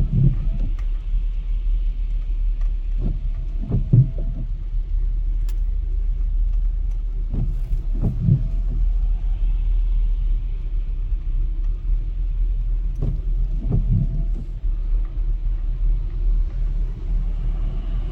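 Steady low road and engine rumble heard inside a moving car, with a short low thump every four to five seconds.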